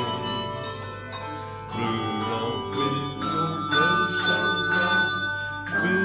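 Handbell choir playing a tune: bells struck one after another, each note ringing on and overlapping the next.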